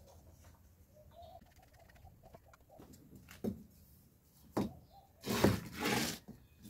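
Faint cooing of a dove, then two sharp knocks and about a second of loud rough noise near the end.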